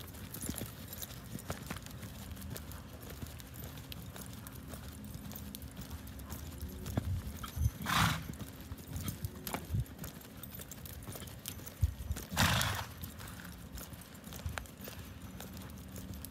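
Quarter horse's hoofbeats thudding in soft arena sand as it lopes under a rider. About eight and twelve and a half seconds in come two short, louder rushing noises.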